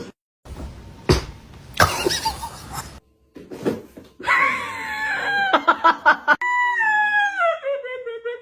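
An animal's long, drawn-out wailing cry that slowly falls in pitch over its last few seconds. Before it come a few seconds of noisy scuffling and knocks.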